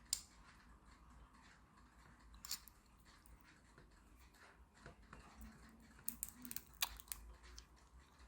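Quiet handling noises: a few sharp small clicks and taps, with a quick cluster of them about six seconds in, as a tiny plastic security-tag case is handled.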